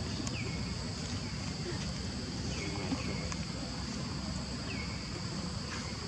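Steady high-pitched insect drone of crickets or cicadas, with several short falling chirps scattered through it.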